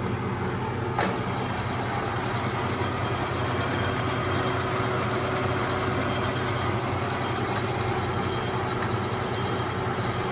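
Kearney & Trecker Model 2K horizontal milling machine running: a steady mechanical hum from its motor and gear train, with a single sharp click about a second in.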